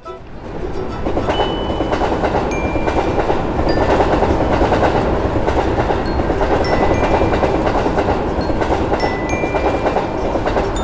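A train running past on the rails: a dense rumbling noise that swells over the first second, then holds steady and loud, with brief faint high tones now and then.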